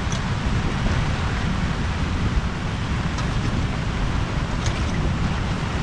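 Strong storm wind buffeting the microphone over the rush of sea waves: a steady, heavy rumbling noise, with a few faint small ticks.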